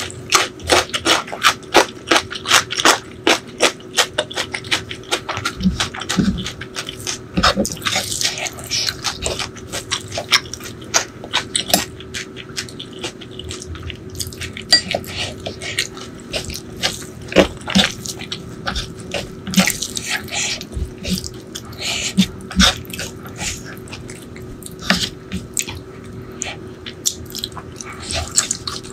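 Close-miked wet eating sounds: chewing, curry gravy spooned onto rice, and fingers squishing and mixing the sauced rice, as many small wet clicks and smacks.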